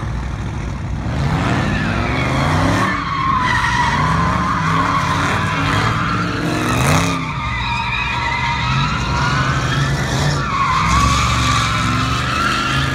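A Dodge thrill-ride car's V8 revving up and down hard as it slides, its tires squealing in long wavering wails. The first squeal runs for most of the first half; another starts near the end.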